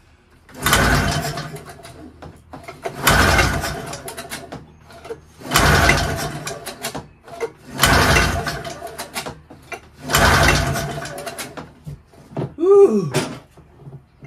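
Ski-Doo Formula MX's Rotax two-cylinder two-stroke engine being pull-started by hand: five pulls on the recoil rope about two and a half seconds apart, each a short burst of cranking that dies away. The engine turns over on starting fluid but does not fire.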